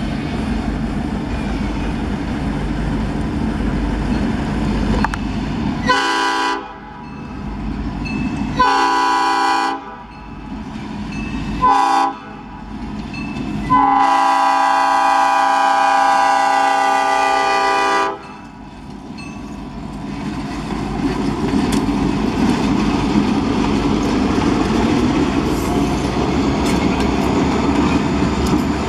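EMD GP38 diesel locomotives of a freight train rumbling on approach. The air horn sounds the grade-crossing signal: two long blasts, one short, and a final long blast of about four seconds. Near the end the engines grow louder as the locomotives pass close by.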